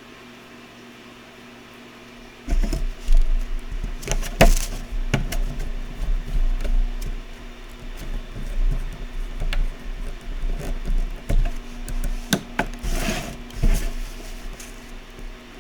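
Workbench handling noise: irregular clicks, knocks and rustles of small tools and parts being handled, with low rumbles of the microphone or bench being bumped, starting a couple of seconds in and going on until just before the end.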